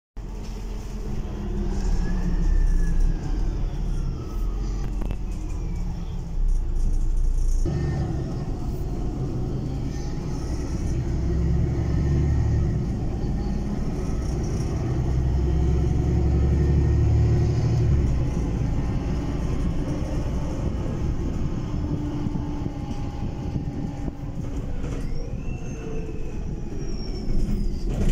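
City bus heard from inside the passenger cabin while driving: a steady engine and road rumble, with the pitch gliding up and down as the bus speeds up and slows. Near the end a high whine rises and then falls.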